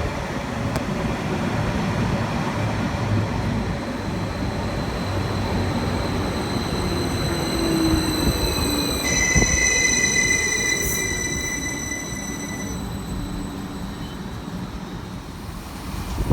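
A train running through the station, its rumble building to its loudest about ten seconds in and then fading, with high steady squealing from the wheels or brakes for a few seconds in the middle.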